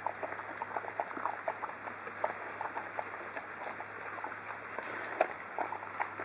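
Samoyed dog eating from a plastic bowl: irregular wet chewing and smacking, several small clicks a second.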